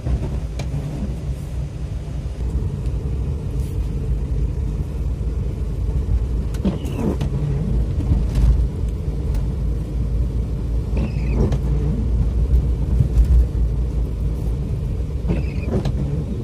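Car cabin road noise: a steady low rumble of engine and tyres on a wet street. The windscreen wipers sweep three times, about every four seconds.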